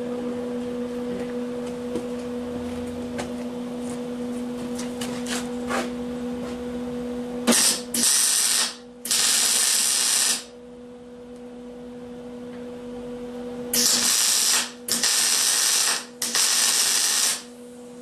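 Arc welding sizzle in six bursts of about a second each, in two groups of three, over a steady electrical hum, with a few faint clicks before the first weld.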